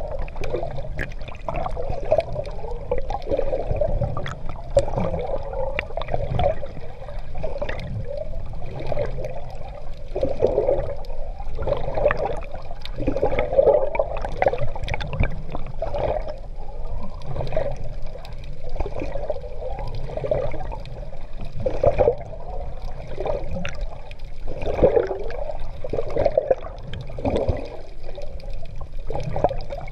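Sea water sloshing and gurgling around a swimmer's GoPro as he swims through the sea, surging in uneven pulses every second or two.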